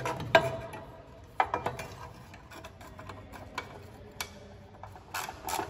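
Socket ratchet wrench clicking as a bolt is run in to fasten a front bumper bracket to the car's cross bar. There is a sharp metal knock about a third of a second in, scattered clicks, and a faster run of ratchet clicks near the end.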